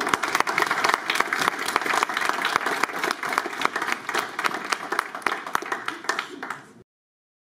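Audience applauding, a dense run of clapping that cuts off abruptly near the end.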